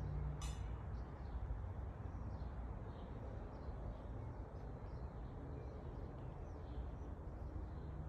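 Outdoor garden ambience: small birds chirping faintly here and there over a steady low rumble.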